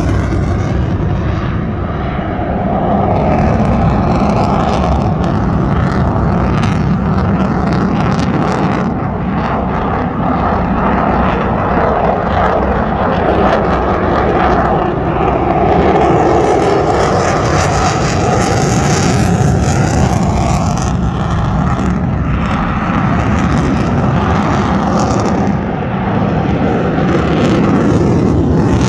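Loud, sustained aircraft engine noise, swelling and easing a few times.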